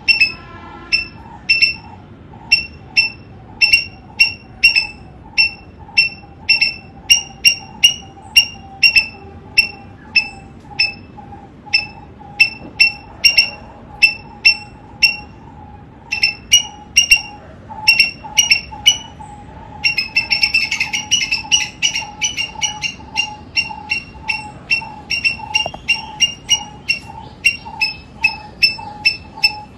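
Eastern gray squirrel barking: a long series of short, sharp calls repeated about two to three times a second, breaking into a faster chatter about two-thirds of the way through. These are the squirrel's typical alarm barks.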